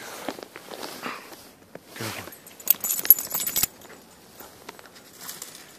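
A dog romping in fresh snow: irregular scuffling and crunching of snow, with a brief jingle of collar tags about three seconds in, the loudest part.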